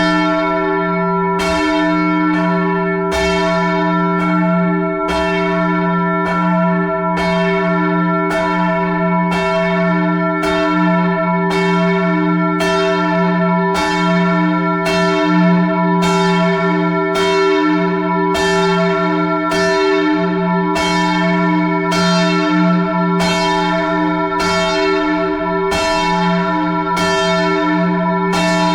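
Church bells 7 and 8 of an eight-bell English change-ringing tower being rung up by rope, swinging higher towards the balanced mouth-up position. Clapper strikes come about once a second, each ringing on, so the tones run together into a continuous hum.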